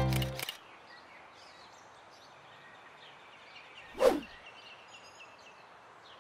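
The last keyboard note of the music sounds and stops about half a second in, leaving a faint background with small chirps. About four seconds in, a brief whoosh sounds as the slide transition swipes across.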